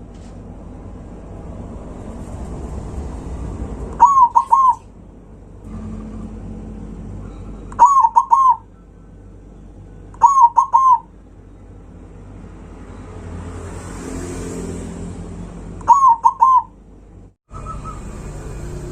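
Zebra dove (perkutut) cooing: four short phrases of three quick ringing notes each, a few seconds apart. A steady low background noise runs between them.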